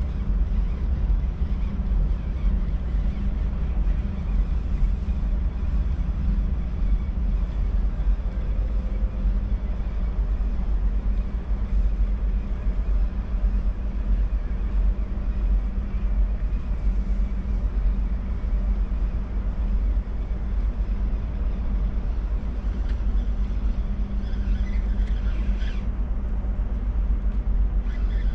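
Steady low machinery rumble with a constant hum, mixed with wind buffeting the microphone.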